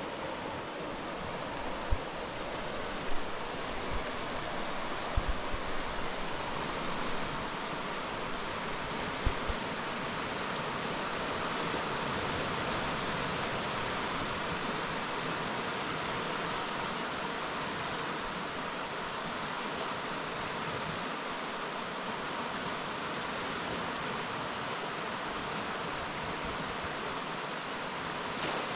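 Steady rushing noise of a fast-flowing river current. A few short low thumps come in the first ten seconds.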